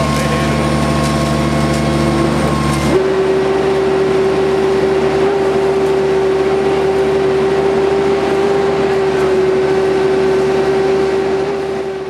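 REED XT39 concrete boom pump running steadily while pumping concrete through the delivery hose. About three seconds in the machine note changes abruptly to a strong, steady whine, and the sound begins to fade near the end.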